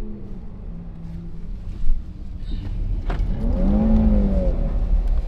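Car driving on a slushy road, heard from inside the cabin: a steady low rumble of tyres and engine, with a sharp thump about two seconds in. Near the end the engine revs up and back down as the loudness swells.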